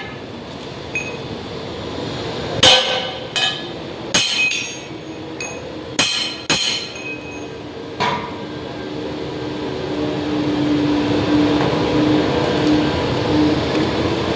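Hammer striking metal: about seven separate sharp, ringing blows over the first eight seconds, then a steady noise that slowly builds to the end.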